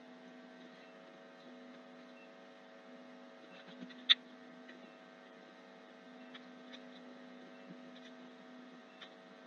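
Steady electrical hum with a few faint computer mouse clicks, and one sharper click about four seconds in.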